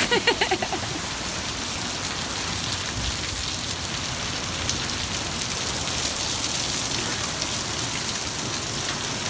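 Torrential monsoon rain pouring down in a steady, dense, loud hiss.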